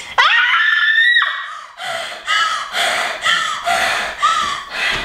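A girl screaming as she wakes from a nightmare: one loud scream that rises in pitch and is held for about a second, followed by quick gasping, panting breaths about twice a second.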